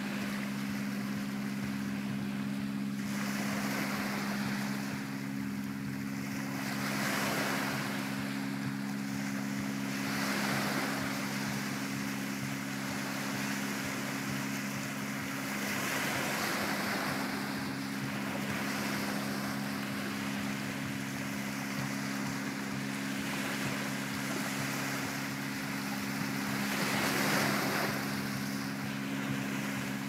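Small Mediterranean waves breaking and washing up a shallow sandy shore, a new surge swelling every three to four seconds, the biggest near the end. A steady low hum runs underneath.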